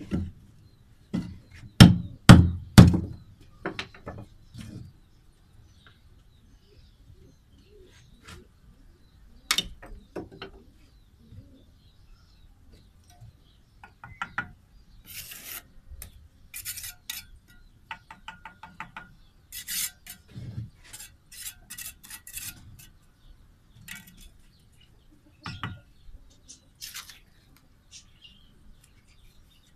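Bricklaying with a steel trowel and a metal mortar pan: a few heavy knocks in the first few seconds, then scattered clinks and quick runs of the trowel scraping and knocking against the pan, busiest in the middle of the stretch.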